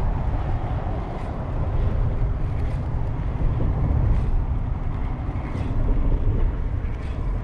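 Wind buffeting the microphone: a steady, uneven low rumble, with a few faint soft ticks now and then.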